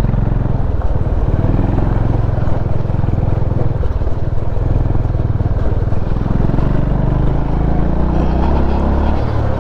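A motorcycle engine runs steadily while riding, its low pulsing note mixed with wind and road noise.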